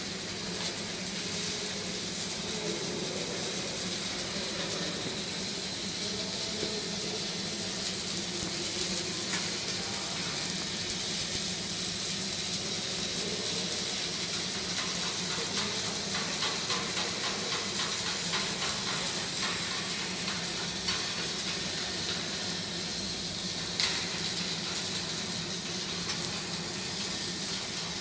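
Electric arc welding: the arc's steady crackling hiss, with a steady low hum underneath and a sharp click near the end.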